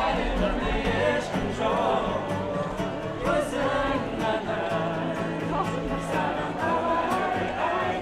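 Street buskers singing to an acoustic guitar, the voices wavering over steady strummed chords, with the murmur of a crowd around them.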